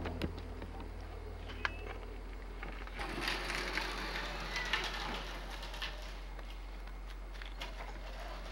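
Scattered crunching and scuffing of a toddler's shoes and hands on gritty ground and stepping stones, busiest about three to five and a half seconds in, over a steady low hum.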